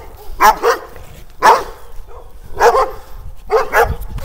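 Dog barking repeatedly in short loud barks, some in quick pairs, about one burst a second.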